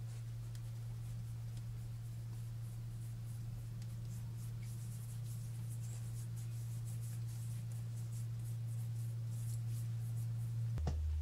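Fingertips rubbing face primer into the skin, heard as a string of faint soft strokes over a steady low hum.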